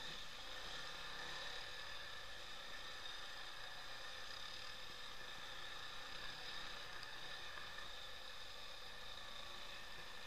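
ATV engine running, heard as a faint, steady drone with a high whine that barely changes.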